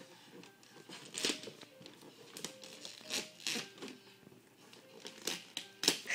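Wrapping paper crinkling and rustling in a few short, quiet strokes as a small child pats and tugs at a gift-wrapped box. Faint music plays underneath.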